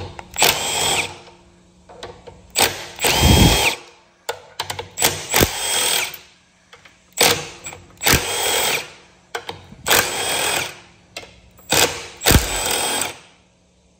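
Cordless power driver spinning 12 mm bolts out of a mower engine's aluminium gearbox cover in a string of short trigger pulls, each a brief whining run of half a second to a second, about nine in all.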